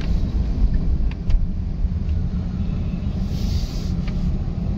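Low, steady rumble of engine and road noise heard inside a moving car's cabin, with a brief hiss about three seconds in.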